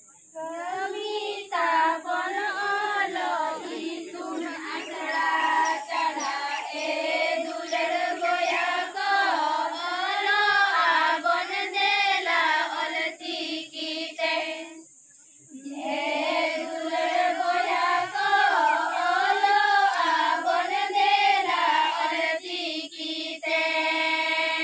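A group of women singing a Santali song about the Ol Chiki script in unison, unaccompanied. They break off for about a second halfway through, then start again, and hold a long note near the end.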